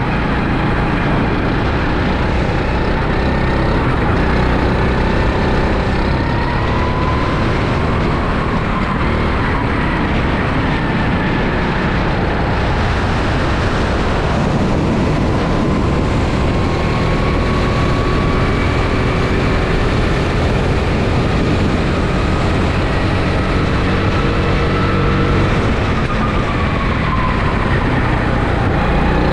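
Rental go-kart's engine heard from onboard, its pitch slowly rising and falling with the throttle through the corners, under a steady loud rush of wind and road noise on the microphone.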